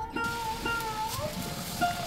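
Background instrumental music: a plucked-string melody with held notes that bend up and down in pitch, over an even pulse of plucked strokes.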